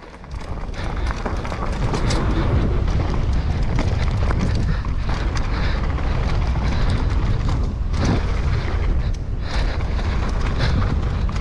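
Downhill mountain bike riding fast over a dirt and gravel trail: wind buffeting the microphone in a heavy low rumble, with tyre noise and the bike's rattles and clicks over small bumps. It builds up over the first second or two as the bike gathers speed.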